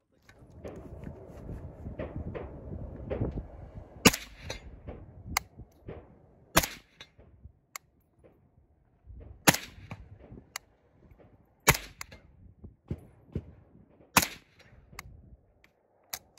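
Suppressed Galil rifle firing slow single shots. After a few seconds of dense noise, about five louder sharp cracks come roughly two and a half seconds apart, each followed about a second later by a fainter crack.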